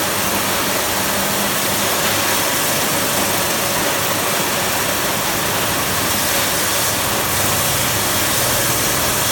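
Fish bait-cutting machine running with a steady, loud mechanical noise and a low hum underneath.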